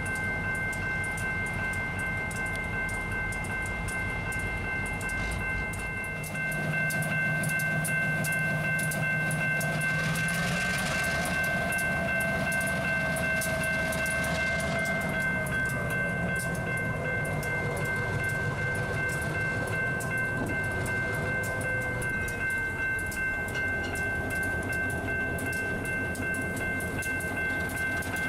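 Union Pacific diesel locomotive running as it hauls flat cars over a grade crossing, its engine getting louder about six seconds in. The crossing bell rings steadily throughout.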